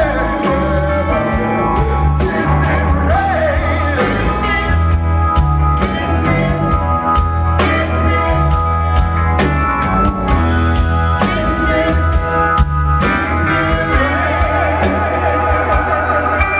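A live blues band playing with a singer over a heavy, steady bass line.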